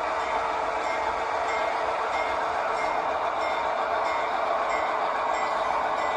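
Locomotive running steadily while switching cars, an even rumble and hiss with no change in pace.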